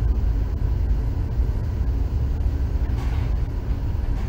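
Steady low rumble of room background noise with no speech.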